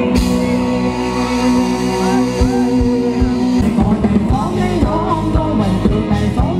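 Live rock band playing loud through a PA: held electric guitar chords over a drum beat, with a male singer coming in about halfway through.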